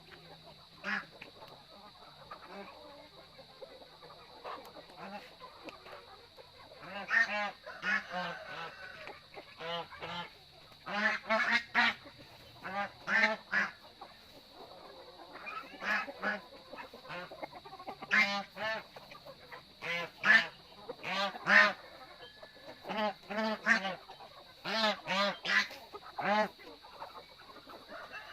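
Domestic waterfowl calling with repeated short, harsh honks and quacks, often in quick pairs or clusters, starting a few seconds in. A steady high-pitched drone runs underneath.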